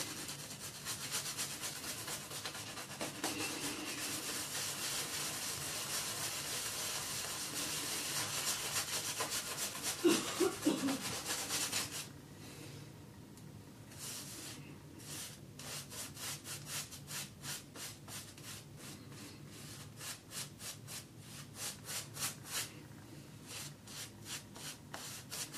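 Omega boar-bristle shaving brush scrubbing shaving-soap lather onto a bare scalp as the lather is built up. It is a steady wet rubbing for about the first twelve seconds, then turns into quick separate strokes, several a second.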